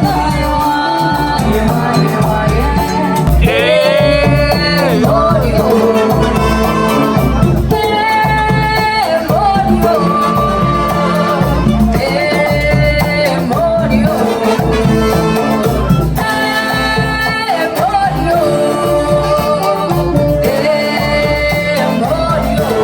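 A band playing live, mostly instrumental: a melody line with a bending, sliding phrase about four seconds in, carried over a steady low pulse.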